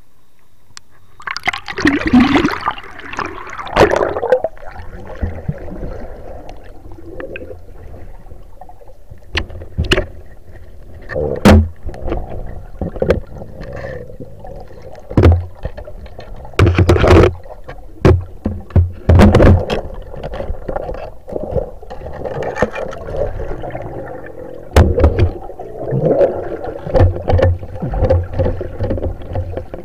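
Underwater sound picked up by a camera in a river: water rushing and gurgling as the camera moves through it, a strong rush near the start, and many sharp knocks and clicks scattered irregularly over a low rumble.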